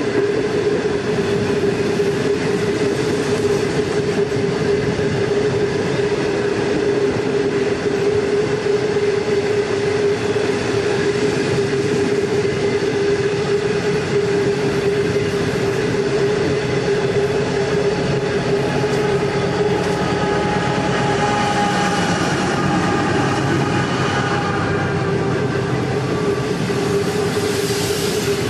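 Freight train wagons rolling past at close range: a steady rumble with a constant hum, and faint high whining tones that come in over the last several seconds.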